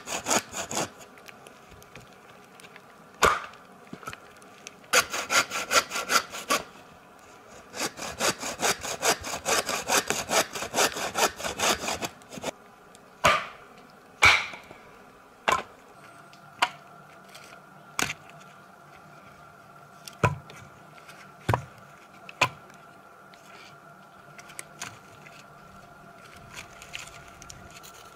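A hand saw cutting through wood in quick back-and-forth strokes, in three bursts over the first twelve seconds. After that come separate sharp knocks and cracks of wood, one every second or so.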